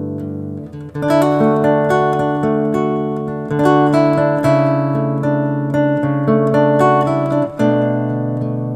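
Background music: acoustic guitar picking a melody with chords.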